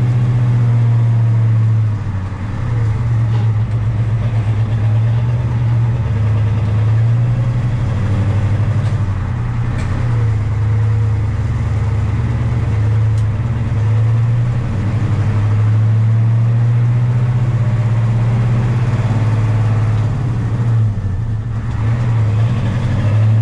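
Truck engine running under way, heard from inside the cab: a steady low drone that dips briefly about two seconds in and again near the end.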